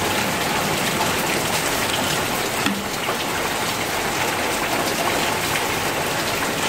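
A hot frying pan of sautéed eggplant and long beans sizzling with a steady hiss, as water is poured in at the start to begin the broth.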